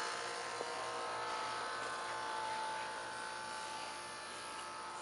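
A steady buzzing hum with a few held tones, easing off slightly toward the end.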